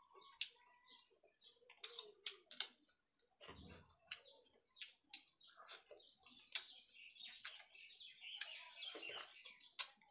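Quiet eating by hand: a run of short, sharp clicks from chewing and from fingers working rice on a steel plate, with birds chirping in the background, busiest about two-thirds of the way through.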